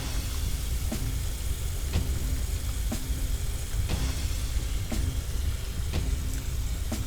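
Fire hose spraying water in a sound-effect track: a steady hiss over a low engine rumble, with a faint click about once a second.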